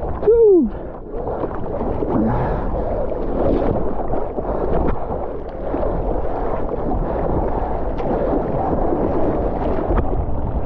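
Water sloshing and splashing around a longboard as a surfer paddles it prone, arm strokes slapping into the water, with small splashy ticks throughout. About half a second in there is a brief loud falling tone.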